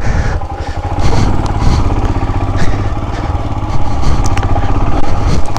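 Royal Enfield Himalayan 411's single-cylinder engine running at low revs, a steady fast pulse of firing strokes.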